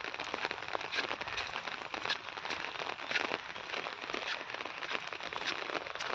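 Heavy rain falling on a hard surface: a steady hiss dotted with many sharp, separate drop hits.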